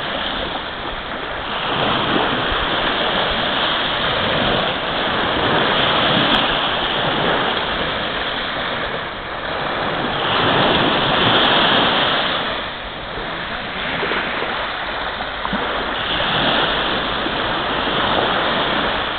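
Small sea waves breaking and washing over the shore, the rush of surf swelling and easing every few seconds.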